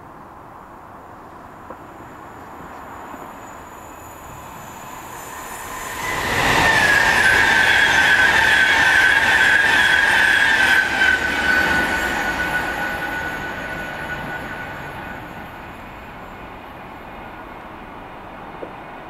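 A Virgin Pendolino electric express passing close at speed: wheel and air noise swells about six seconds in and fades over the following several seconds, with a high whine that drops slightly in pitch as the train goes by.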